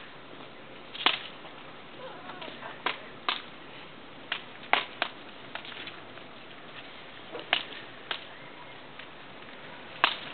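Puppies' claws clicking and tapping on stone paving tiles as they walk about: about a dozen sharp, irregular clicks, some louder than others.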